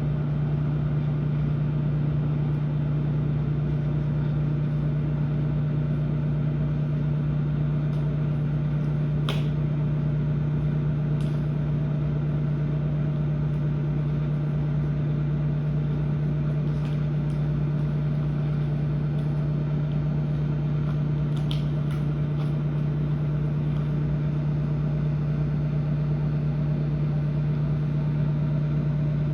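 Microwave oven running at full power, a steady low electrical hum, heating gum that is melting and bubbling. A few faint clicks sound partway through.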